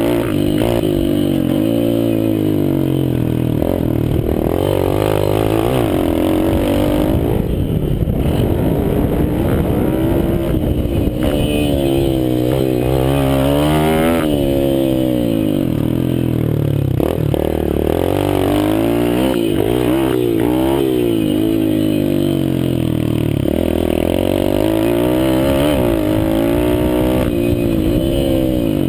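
Mini motocross bike engine revving hard on a dirt track. Its note climbs, drops back as it shifts gear or eases off, and climbs again, over and over.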